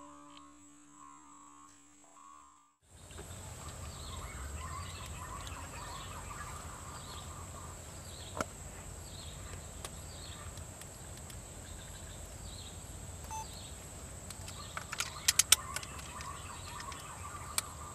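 Outdoor treetop ambience: after about three seconds of near silence, a steady high insect buzz sets in with a bird's short falling chirps repeating about once a second. A quick run of sharp clicks comes near the end.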